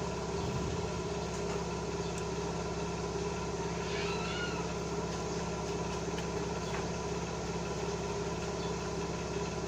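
A steady mechanical hum made of several fixed tones, like a motor running at constant speed. A faint, brief chirp sounds about four seconds in.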